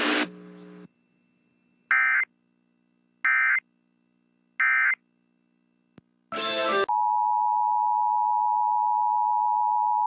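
Three short bursts of Emergency Alert System SAME data tones about 1.3 s apart, the end-of-message code closing a weather warning broadcast. Around six seconds in there is a short noisy burst, then the two-tone EAS attention signal sounds steadily, the signal that opens a new alert.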